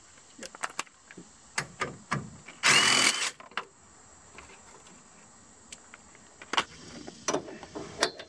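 A DeWalt cordless impact driver with a socket fitted runs in one short burst about two and a half seconds in, the loudest sound. Light metallic clicks and knocks from the socket and tool being handled come before and after it.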